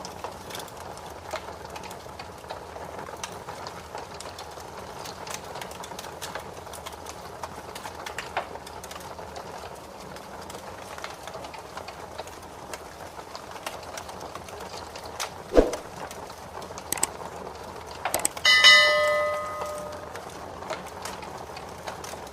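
Wood fire crackling steadily with scattered small pops, and one sharp loud pop about two-thirds of the way through. A few seconds later comes a brief metallic bell-like ring that dies away over a second or so.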